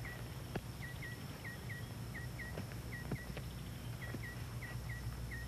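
Quiet rural outdoor ambience: a small creature chirping in quick double chirps, the pairs repeating about every two-thirds of a second, over a steady low hum and faint hiss, with a few light clicks.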